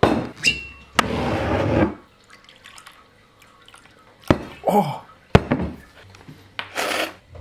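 A cork stopper drawn from a large glass liquor bottle, then liquor poured into a shot glass with a short glugging pour halfway through. A sharp knock of glass set down on a hard countertop follows just after the pour.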